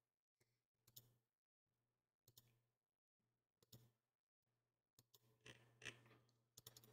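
Near silence broken by a handful of faint computer mouse clicks, spaced out at first and then several in quick succession near the end.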